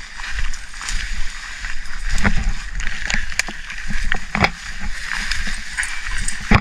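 People and dogs walking through tall grass and brush: a steady swishing and rustling with many scattered light knocks and snaps, over a constant low rumble.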